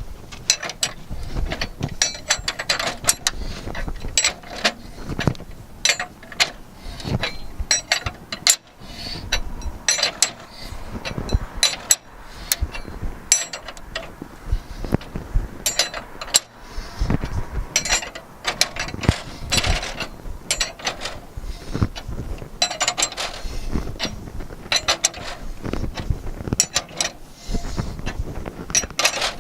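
A hand ratchet clicking in runs of short strokes with brief pauses, working a tool through an equipment enclosure to cut a 3/4-inch conduit opening.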